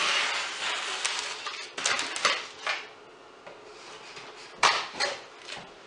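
A knife blade slitting the packing tape along the seams of a cardboard box: scratchy, rasping strokes of the blade through tape and cardboard, a long one at the start and several shorter ones. Two sharp knocks of cardboard near the end are the loudest sounds.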